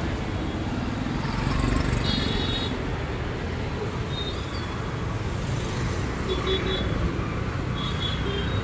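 Busy street traffic: motorcycles and cars running steadily past, with a few short, high horn toots.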